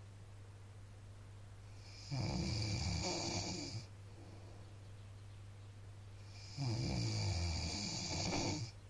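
A sleeping man snoring: two long snores about four and a half seconds apart, each lasting nearly two seconds, with quiet breathing between them.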